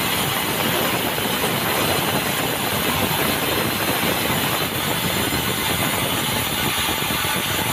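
Sawmill running with a steady, loud machine noise.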